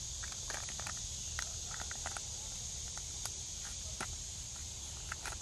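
Steady high-pitched insect chorus with scattered light clicks and taps.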